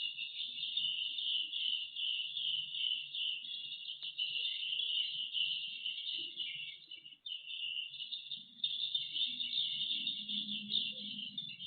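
Edible-nest swiftlets twittering: a dense, continuous chatter of high chirps, with a brief dip about seven seconds in.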